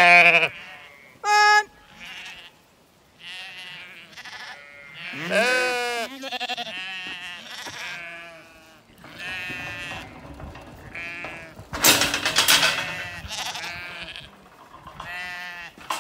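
Zwartbles sheep bleating: a string of separate calls from several animals, some with a wavering quaver. The loudest call comes about twelve seconds in.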